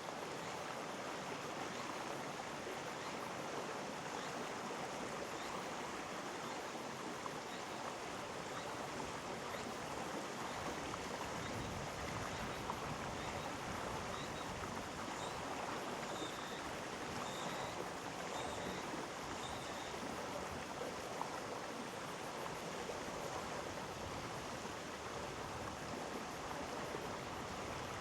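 Mountain stream in a rocky gorge, water flowing and splashing steadily. A few faint high chirps come in about halfway through.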